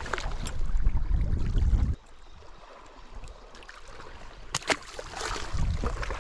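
Wind buffeting the camera microphone in gusts, dropping away suddenly about two seconds in and picking up again near the end. About four and a half seconds in there are two sharp clicks close together, then a short hiss.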